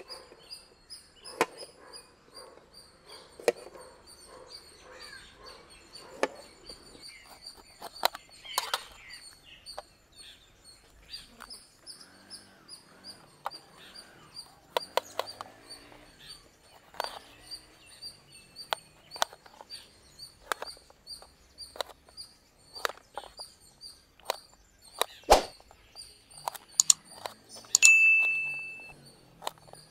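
Kitchen knife cutting bell peppers on a steel plate: irregular sharp taps of the blade on the metal, over steady high chirping in the background. Near the end, a short chime.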